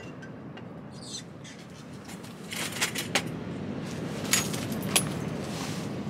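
Steady rush of strong wind and surf, with a few sharp clicks and clinks from small objects being handled in the second half.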